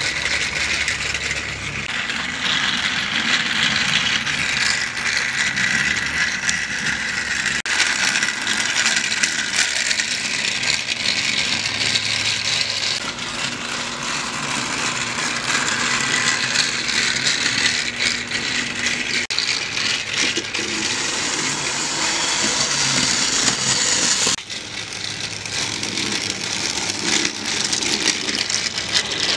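Battery-powered TOMY Trackmaster toy trains running on plastic track: a steady whir and rattle of the small motors, gears and wheels. The sound changes abruptly a few times.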